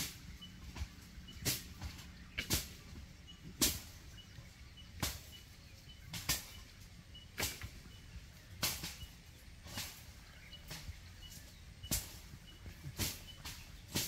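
Outdoor natural ambience: a short, sharp rasping sound repeating about once a second, with faint high chirps in between.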